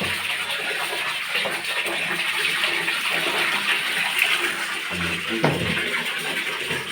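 Water splashing and rushing steadily, with a brief voice about five seconds in.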